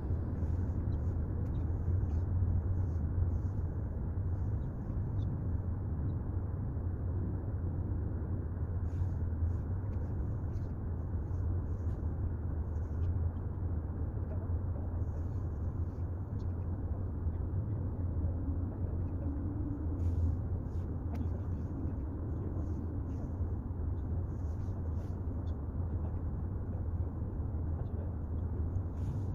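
Steady low background rumble with faint, scattered small ticks over it.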